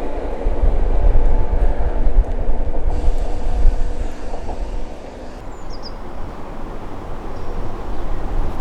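Train passing on the railway line, a loud rumble that eases off about five seconds in.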